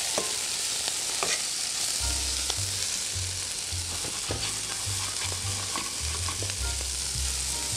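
Diced carrot, potato and spinach sizzling as they sauté in a hot frying pan, stirred with metal tongs that click against the pan.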